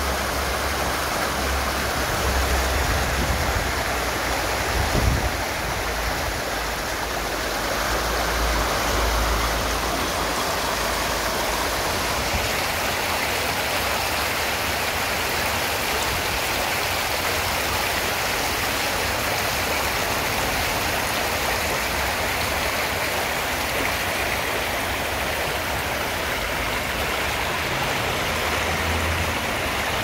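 Shallow stream rushing through a narrow stone-walled channel and spilling over small step cascades: a steady, even rush of water.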